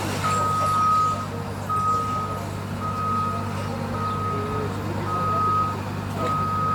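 Heavy machine's backup alarm beeping at a steady high pitch, about one beep a second, each beep a little under a second long, over a diesel engine running steadily.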